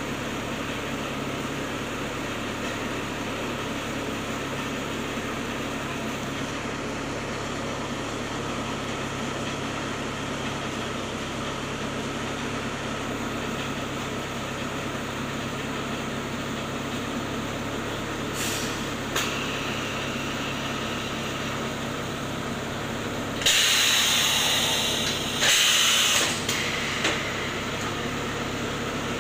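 BA05 clay brick extruding machine running with a steady mechanical drone while soil is fed into it. Short hisses come a little past the middle, and two loud hissing bursts about three-quarters of the way through are the loudest sounds.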